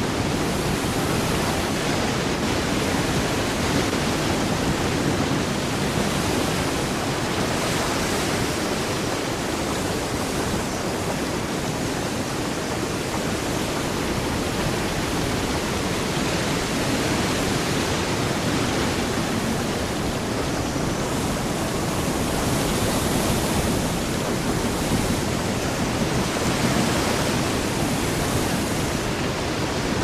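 Ship-at-sea ambience: a steady wash of ocean water that swells and eases slowly, louder for a few seconds past the middle.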